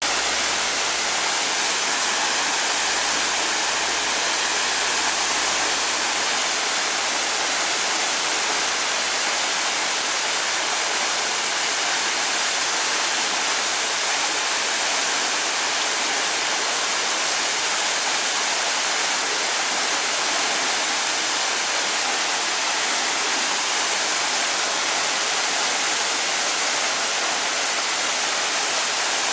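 Waterfall on a small mountain stream, falling water rushing and splashing in a steady, unbroken roar of noise.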